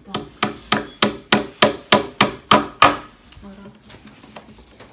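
Small hand hammer tapping into the edge of a particleboard cabinet panel: about ten quick, evenly spaced blows, roughly three a second, that stop about three seconds in.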